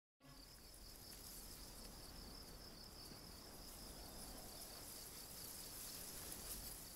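Faint insects chirping in a grassy meadow: a high, regular pulsing chirp, about four a second, over a soft hiss.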